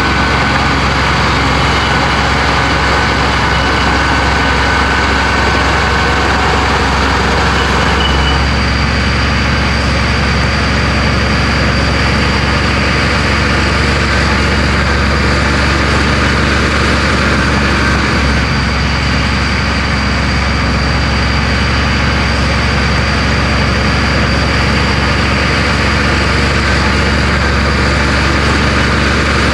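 Komatsu bulldozer's diesel engine running steadily under work, its note shifting about eight seconds in.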